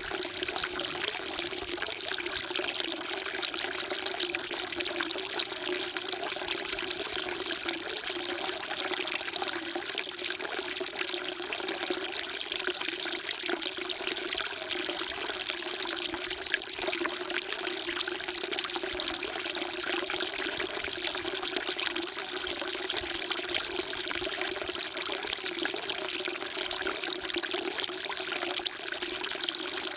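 Water falling steadily from a spout into a temple water trough (sugwak), a constant splashing trickle with no break.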